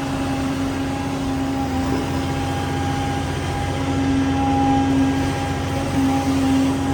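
Excavator's diesel engine running steadily while digging, with a steady high-pitched tone held over the engine note.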